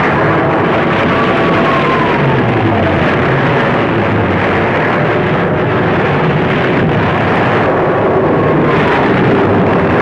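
Aircraft engines running loud, with falling whines as planes pass, about a second in and again near the end.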